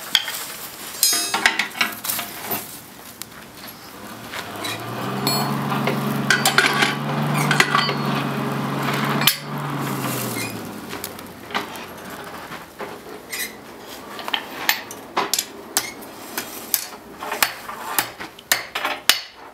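Hand hammer striking hot iron on a steel anvil, sharp ringing blows. In the middle a coal forge's blower hums steadily for about six seconds while the fire is heated, then a run of quick hammer strikes on the anvil follows.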